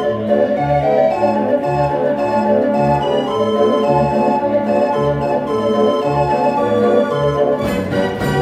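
Dutch street organ playing a tune, its pipes sounding a melody over a steady oom-pah bass and chord accompaniment, with a percussion crash near the end.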